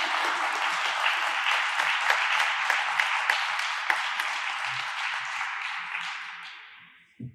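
Audience applauding, a dense steady clatter of many hands clapping that dies away near the end.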